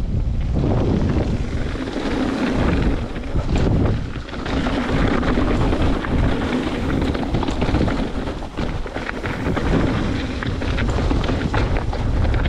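Wind rushing over the microphone and the knobby tyres of a Trek Remedy 8 XT full-suspension mountain bike rumbling down a rough downhill trail, with many quick rattles and knocks from the bike over roots and rocks. The noise dips briefly twice.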